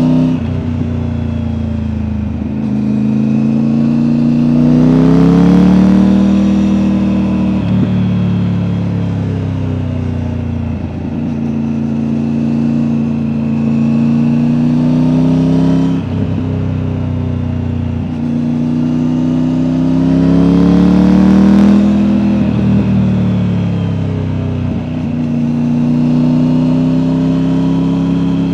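Triumph Tiger 900's three-cylinder engine running through an Akrapovic exhaust, heard on board from the rider's backpack while riding. The revs dip sharply every few seconds, and the engine pulls harder with rising pitch twice, about five and twenty-one seconds in.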